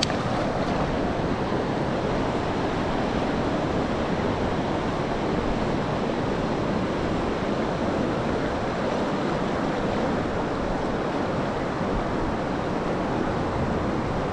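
Steady rush of river water flowing over rocks, an even noise with no change in level.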